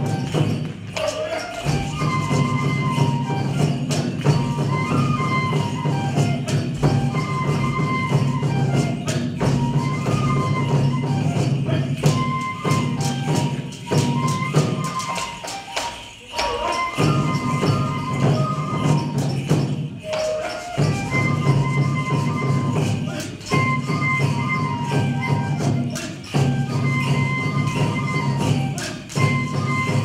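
Japanese folk music for a koma odori horse dance: drums struck in a steady beat with constant jingling, under a short high melody that repeats every few seconds.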